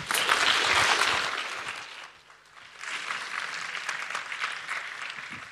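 Audience applauding in a hall. A loud burst fades about two seconds in, then a second, quieter wave of clapping follows.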